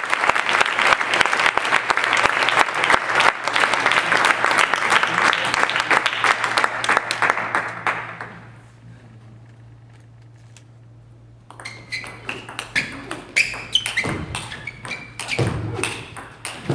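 Spectators clapping in a sports hall, fading out about eight seconds in. After a few quiet seconds, a table tennis rally starts: sharp clicks of the celluloid ball off bats and table.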